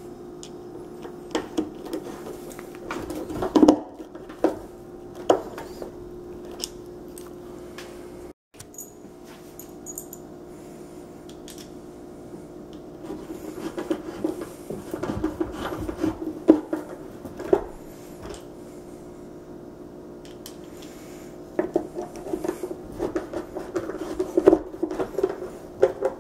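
Screws being driven by hand with a screwdriver into metal anchors in a fibreboard furniture panel: clusters of clicks, ticks and scraping, with small knocks of handling.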